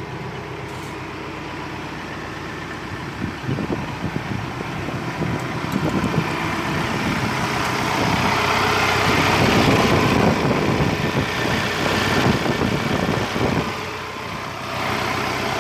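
55 HP tractor engine running, getting louder and rougher from about three seconds in as it works harder, then easing near the end. No metal screech or grinding is heard now that the broken cover on the four-wheel-drive shaft has been welded back.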